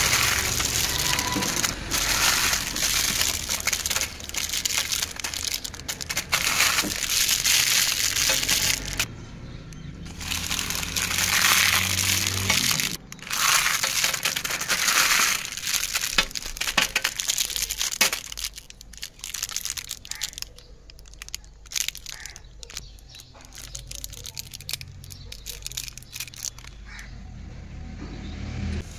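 Clear plastic candy wrappers crinkling and crackling as a hand scoops and stirs through a heap of individually wrapped candies. The crinkling is dense and loud at first, then becomes sparser and quieter in the second half.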